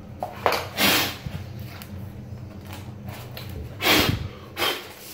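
Four short, sharp exhalations of breath close to the microphone, the loudest about a second in and about four seconds in, over a steady low hum.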